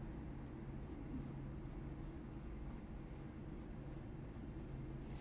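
Faint scratching of a Polychromos coloured pencil on kraft card, laid down in short repeated strokes about three a second as hair strands are drawn, over a steady low hum.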